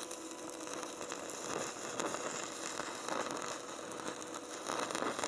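Stick-welding arc from a 3/32-inch (2.4 mm) Forney electrode at 70 amps on a Rubik MMA 225 inverter welder, giving a steady crackle that swells and dips unevenly. The workpiece is too thin, and the arc is melting it.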